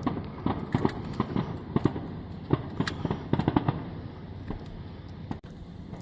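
Fireworks going off in a rapid, irregular string of pops and bangs. The bangs come thick for about four seconds, then thin out.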